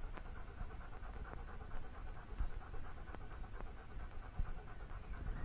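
A German Shepherd Dog panting in a fast, steady rhythm, with a few faint clicks.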